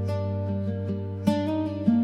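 Background music: a gentle acoustic guitar instrumental intro, plucked notes over a steady bass.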